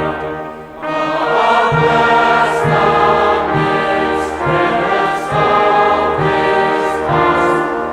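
Choral music: a choir singing sustained chords over a steady low beat that comes in about a second in and repeats roughly once a second.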